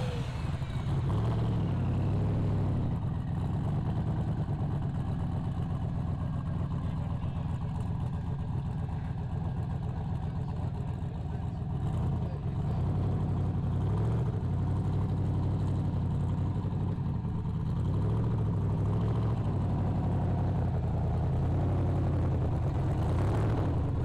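Turbocharged engine of an old rat-rod pickup truck idling with a low, uneven rumble, with a few slight rises in engine speed through the middle and near the end.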